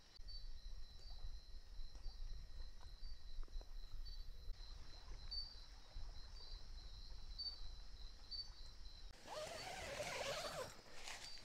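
Night insects droning steadily, with a high chirp repeating about once a second over a low rumble. Near the end, a louder burst of rustling and handling noise as someone moves into the tent.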